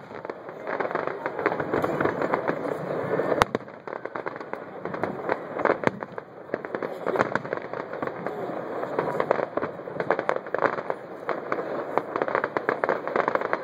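Fireworks display: aerial shells bursting with dense crackling and many sharp pops, one bang standing out sharply about three and a half seconds in.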